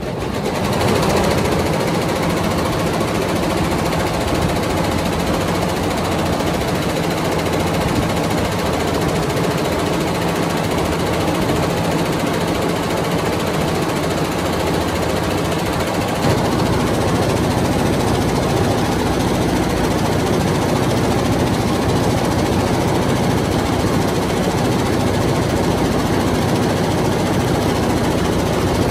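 Multi-head computerized embroidery machine stitching thread into velvet, a loud, steady mechanical clatter of its needle heads.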